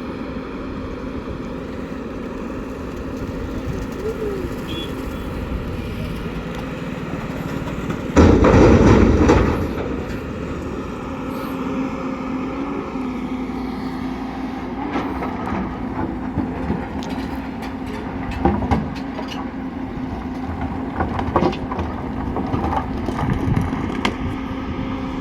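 Heavy diesel earthmoving machinery running steadily with a low hum. About eight seconds in comes a loud rushing burst lasting a second or two, and a series of sharp knocks and clanks follows later.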